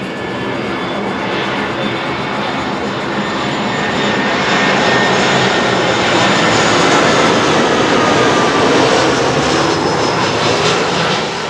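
Airbus A320 airliner's twin jet engines during its landing, the noise building to a peak as it passes close, with a faint falling whine, then dropping off abruptly near the end.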